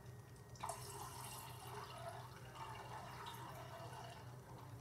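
Fruit punch squeezed out by hand, trickling and dripping into a glass of ginger ale; it starts about half a second in and keeps on faintly and unevenly.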